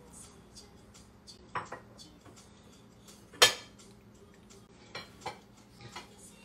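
Kitchen dishes and utensils clinking and knocking: a few separate sharp clinks, the loudest about three and a half seconds in.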